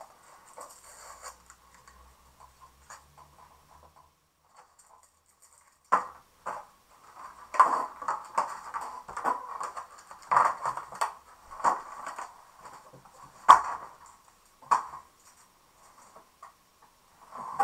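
Clear plastic blister packaging crinkling and clicking as it is handled and pulled apart, starting about six seconds in as a run of sharp crackles with one louder click a little past halfway.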